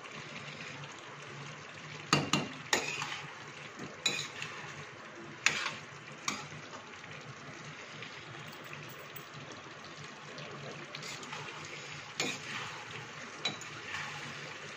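A perforated metal spoon scraping and knocking against a steel kadhai as pumpkin pieces are stirred, with sharp knocks now and then over a steady low sizzle of the vegetables frying.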